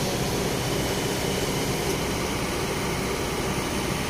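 Diesel engine of a Kobelco crawler excavator running steadily, a low, even drone with no sudden knocks.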